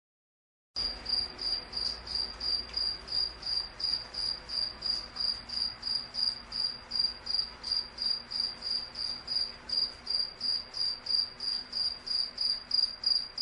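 Cricket chirping in a steady high-pitched rhythm, about three to four chirps a second, coming in just under a second in after a moment of silence.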